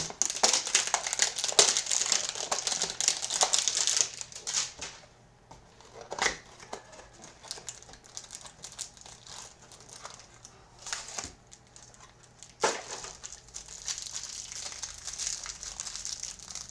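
A trading-card hanger box and its wrapper being opened by hand, with loud crinkling and tearing of the packaging for the first few seconds. Quieter handling follows, with a few sharp clicks, and the crinkling returns near the end.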